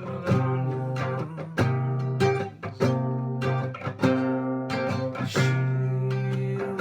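Acoustic guitar strumming chords with no singing, each strum ringing on until the next.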